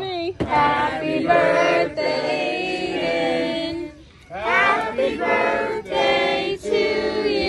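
Voices singing together in a choir-like sound, in long held notes, breaking off briefly about four seconds in.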